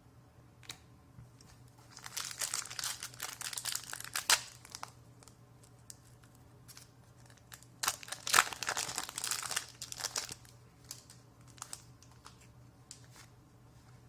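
Foil wrapper of a Battle for Zendikar booster pack crinkling and tearing open, in two bursts about two seconds and eight seconds in, with light ticks between.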